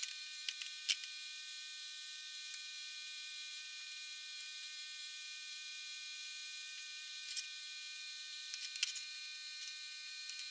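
Faint steady hiss with a thin buzz, and a few light clicks and taps as sheet-metal box panels and a steel square are handled on a metal workbench.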